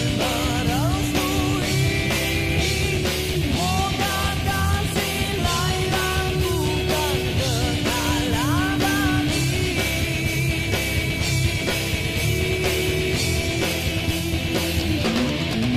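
Rock song playing as a soundtrack: guitar over a steady drum beat, with a singing voice.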